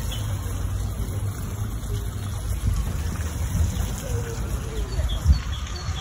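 Outdoor garden ambience: a steady low rumble with faint birds chirping, and a dull thump about five seconds in.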